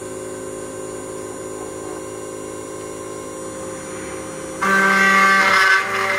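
A CNC router's spindle and stepper-driven axes run steadily while a 5 mm downcut end mill pockets a hex shape in plywood pieces, giving several steady tones. About three-quarters of the way through, the cut suddenly gets much louder and harsher for a second or two.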